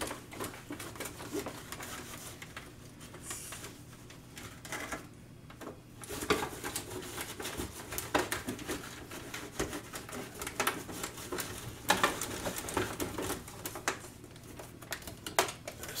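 Microfiber towel rubbing over a plastic RC car body, buffing off a freshly wiped-on spray detailer, with irregular scrapes, light clicks and knocks as the truck is turned in the hands. The rubbing pauses briefly about five seconds in.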